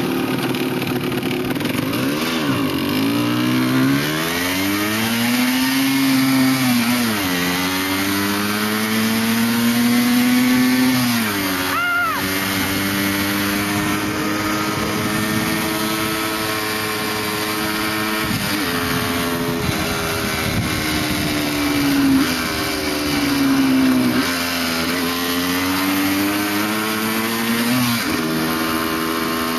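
Motorcycle engine running on the move, its pitch repeatedly climbing and dropping as the rider accelerates and eases off through the gears, with wind rush over it. About twelve seconds in there is a brief, sharp rise in pitch.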